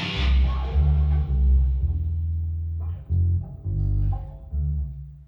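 Rock band practice: a bass guitar plays a phrase of low notes with electric guitar, over a cymbal crash ringing out during the first couple of seconds. The playing breaks off near the end.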